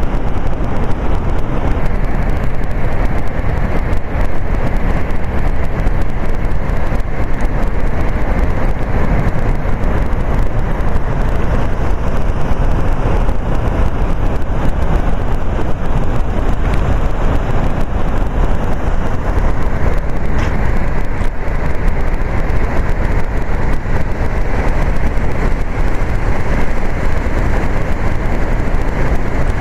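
Steady, loud roar of Niagara's Horseshoe Falls, with water still pouring over an ice-crusted brink.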